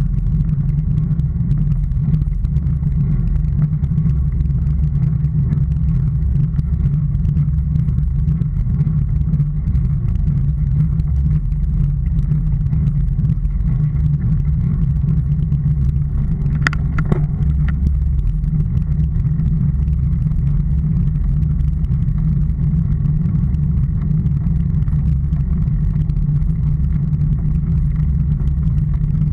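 Steady low rumble of travel along an asphalt road, mostly wind buffeting the microphone along with road noise. A short sharp click or squeak comes twice, a little past the middle.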